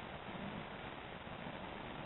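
Steady background hiss with no distinct sound events.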